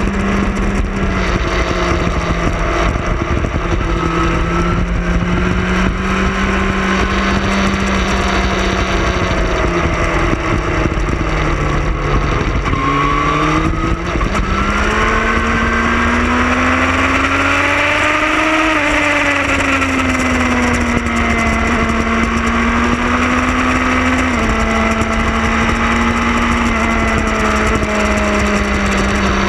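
Motorcycle engine running at road speed, heard from the bike itself over a steady rush of wind. The engine note dips about twelve seconds in, climbs as the rider accelerates until about eighteen seconds, then falls away and settles.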